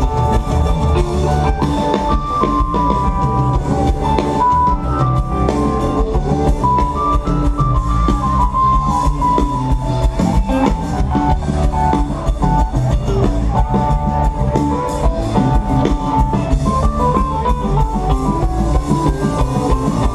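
Live rock band music heard from within the festival crowd: a drum kit keeps a steady beat under a bass line and a melodic lead line of held notes.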